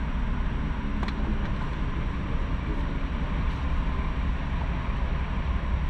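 Car driving along a road: steady low rumble of engine and tyre noise, with one sharp click about a second in.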